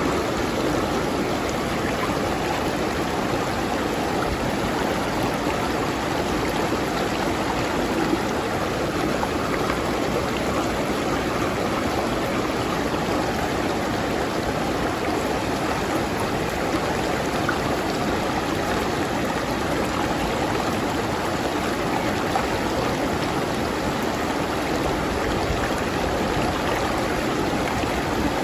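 River water flowing steadily over rocks, a continuous rushing and burbling with no breaks.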